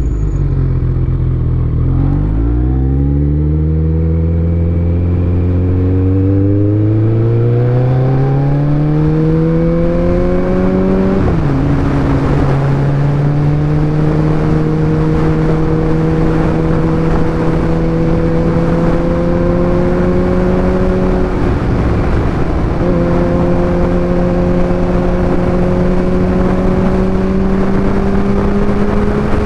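Kawasaki ZX-14R's inline-four engine pulling away from a stop: the revs climb steeply, drop sharply at an upshift about a third of the way in, then pull steadily and slowly higher in the next gear. The engine note breaks off briefly about three-quarters through and then resumes, with wind rush building over it.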